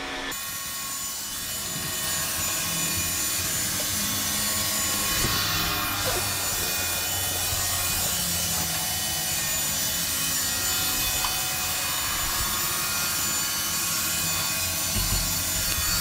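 iRobot Roomba 960 robot vacuum cleaning a tiled floor: its suction fan and brushes run with a steady hiss over an uneven low rumble as it drives.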